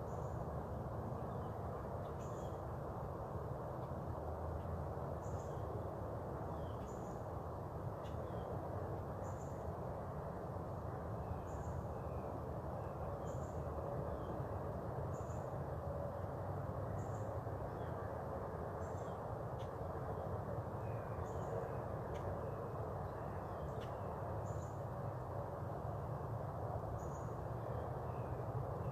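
Outdoor early-morning ambience: a short, high chirp repeats about every two seconds, with fainter, lower chirps in between, over a steady low background hum.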